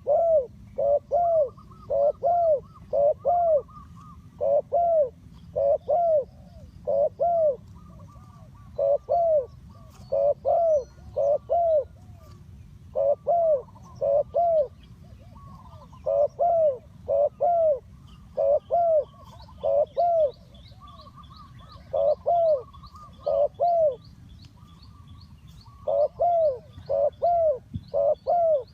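Spotted dove cooing: phrases of three to five low coo notes, repeated over and over with short gaps between them. Small birds chirp faintly above it, more busily from about two-thirds of the way in.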